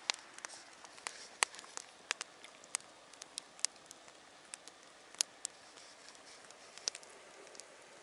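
Wood campfire crackling: irregular sharp pops and snaps, several a second at times, over a faint hiss.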